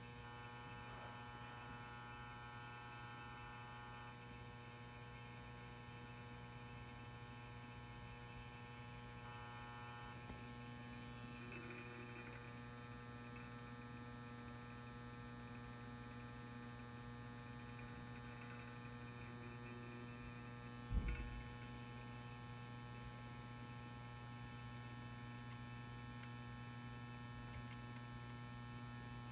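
Steady mains hum from the M59/E ballast running a 400-watt probe-start metal halide lamp while it warms up. A single brief low thump comes about two-thirds of the way through.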